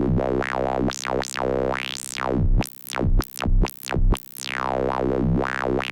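Square-wave synth note held at one pitch through a clean band-pass filter, its cutoff swept up and down by hand for a squelchy, duck-like wah. It breaks into a few short chopped pulses near the middle.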